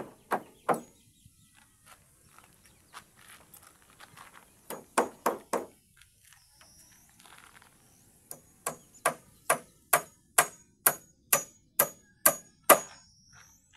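Hammer blows driving nails into the timber floorboards of a wooden cabin. There are a few scattered blows, then four quick ones about five seconds in, then a steady run of about a dozen blows at a little over two a second through the last five seconds.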